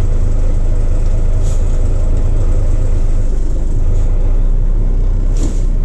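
1983 Mack cabover semi's diesel engine idling steadily, heard from inside the cab.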